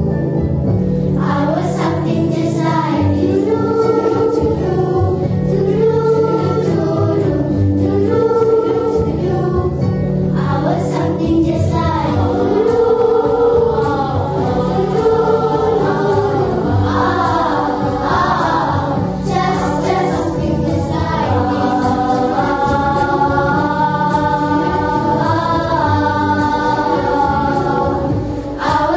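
A children's choir of young girls singing a medley in several voice parts, led by a conductor.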